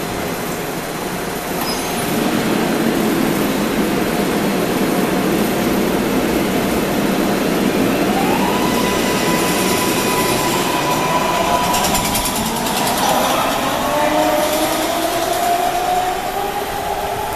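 MARTA rapid-transit train pulling out of an underground station: a steady rumble of the railcars rolling past. From about eight seconds in, the electric traction motors' whine rises in pitch and then holds as the train accelerates away, with more rising whines near the end.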